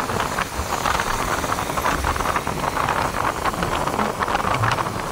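Riding noise from a moving motorcycle: wind rushing and buffeting over the microphone, with engine and tyre noise underneath.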